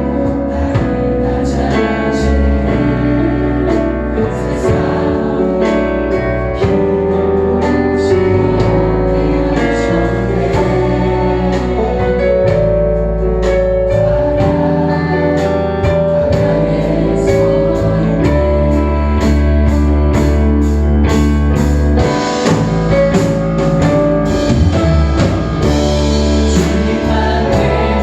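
Church praise team performing a worship song live: singers over a band with guitar and a drum kit keeping a steady beat with cymbal hits.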